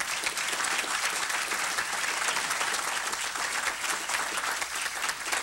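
Audience applauding, many hands clapping at a steady level, welcoming a speaker to the podium.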